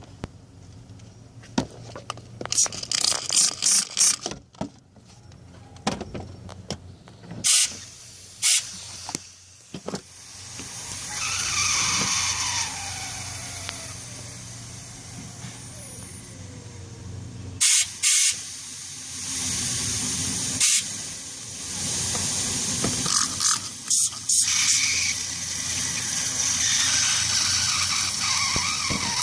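Mazdaspeed engine idling steadily, with air being drawn in through pinhole leaks in the weld of a Corksport intake inlet pipe: a vacuum leak. Short, sharp hisses come again and again over the idle, and around the middle a whistle falls in pitch.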